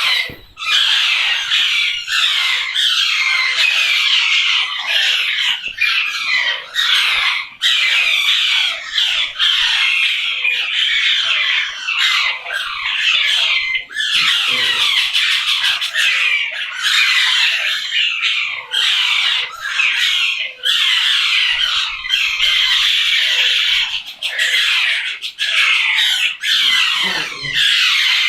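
Many parrots squawking and chattering at once, a dense run of harsh, overlapping calls with hardly a pause.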